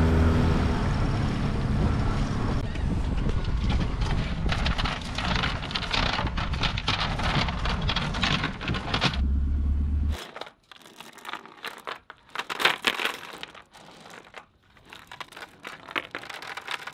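A small outboard motor runs steadily under the rush of wind and water while an inflatable dinghy crosses open water, cutting off abruptly about ten seconds in. After that, metal anchor chain links clink and rattle as the chain is handled and piled into a bucket.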